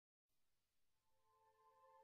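Near silence as background music fades in, with steady held notes entering about a second in.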